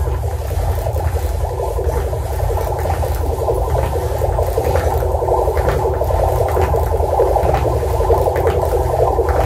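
Electroacoustic collage playing over a loudspeaker: a dense, steady drone of layered, processed everyday sounds, from the turning of a historic wringer mangle, over a low rumble, with faint scattered clicks.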